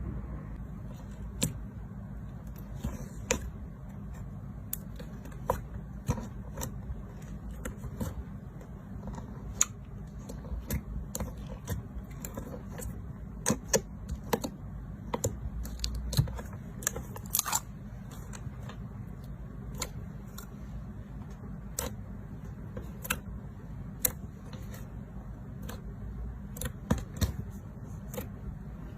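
Slime being pressed and squeezed by hand, making irregular sharp clicks and pops over a steady low hum.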